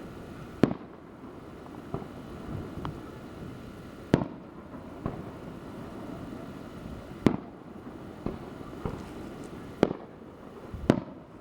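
Fireworks going off: five sharp, loud bangs a few seconds apart, with smaller pops in between, over a steady background noise.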